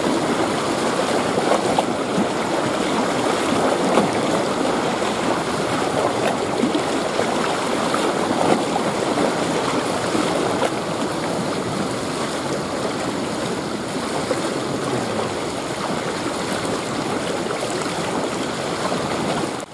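Choppy lake water sloshing and lapping close by, a steady unbroken wash of water noise.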